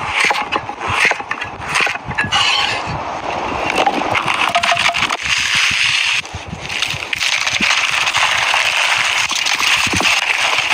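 Food frying in hot oil in a pan: a steady sizzling hiss full of fine crackles. It sets in after a few seconds of scattered clicks and knocks, and dips briefly midway.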